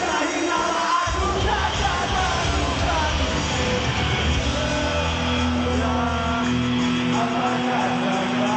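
Rock band playing live with singing; the bass and drums come in about a second in.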